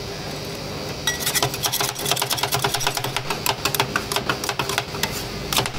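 Metal spatula rapidly chopping and tapping on a frozen steel cold plate, mixing cream for Thai rolled ice cream. The quick, irregular metallic clicking starts about a second in, several strikes a second, over a steady hum.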